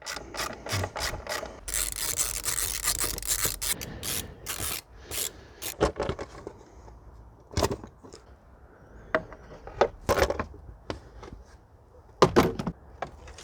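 Plastic engine cover being unclipped and lifted off a 1.9 TDI engine: a quick run of clicks, scrapes and rubs of plastic, followed by a few separate sharp knocks.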